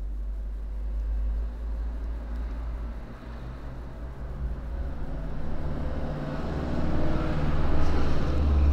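Low steady rumble with a faint engine-like hum, growing louder near the end.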